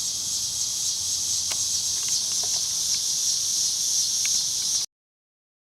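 Steady high-pitched chorus of insects, with a few faint clicks, that cuts off abruptly about five seconds in.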